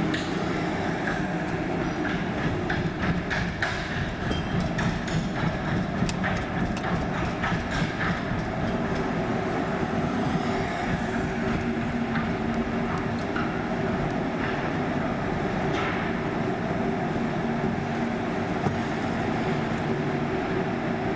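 A car rolling slowly through a ferry's enclosed steel vehicle deck: a steady low drone with a hum, and a run of irregular clicks and clatters in the first half.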